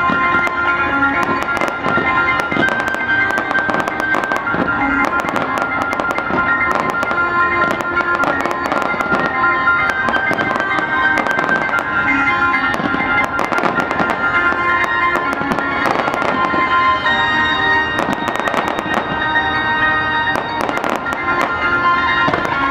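Fireworks bursting and crackling in rapid, continuous succession, heard over music with sustained tones.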